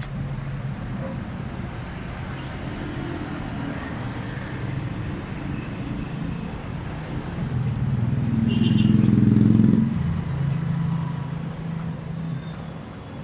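A motor vehicle engine running with a steady low hum, which swells louder from about eight to ten seconds in and then eases back.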